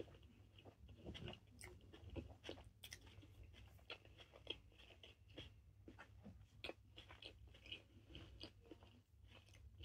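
Faint chewing of a vegan bacon, lettuce and tomato sandwich, with irregular soft crunches and wet mouth clicks.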